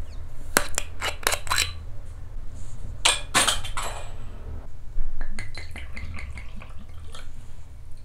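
Glass clinking and knocking as a glass soju bottle and a small shot glass are handled and set down. There are several sharp clinks in the first two seconds, a louder clink with a brief ring about three seconds in, and lighter clicks later, over a low steady hum.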